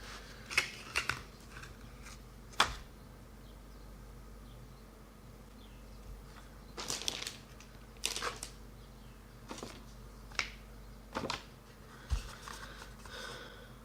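Sporadic sharp clicks, taps and short rustles from handling PC components and their cardboard and plastic packaging.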